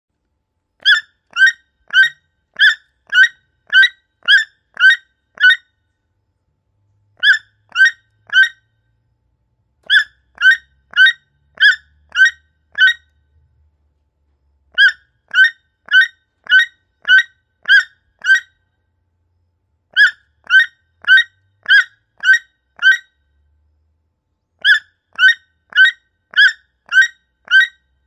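A toucan calling in a series of short, sharp, yelping notes, about two a second. The notes come in bouts of three to nine, with pauses of a second or two between bouts.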